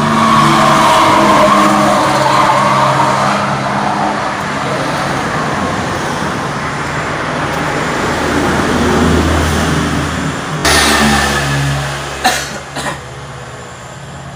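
Motor vehicle engine noise, rising and fading, with a new louder surge about eleven seconds in and a couple of sharp knocks soon after.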